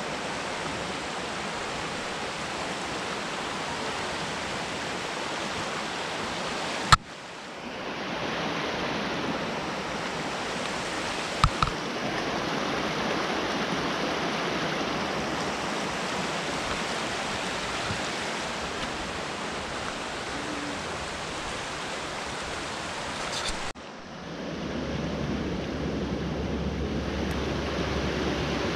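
Shallow rocky creek rushing and splashing over stones and small cascades, a steady even rush of water. A sharp click about seven seconds in and a dip near the end, each time the rush fading back up, and two short knocks around eleven and a half seconds.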